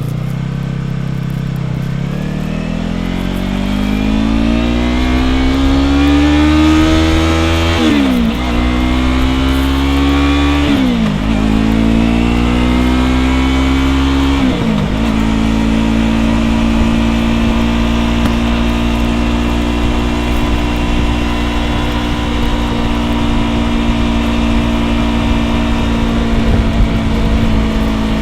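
Yamaha R3's parallel-twin engine through an aftermarket Ransoto slip-on exhaust, pulling hard through the gears: the engine note climbs, with three quick upshifts in the first half, then holds a steady pitch at cruising speed.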